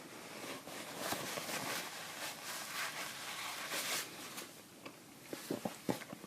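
Someone eating hot instant noodles close to the microphone: about four seconds of airy, hissing noise, then a quick run of sharp little clicks near the end.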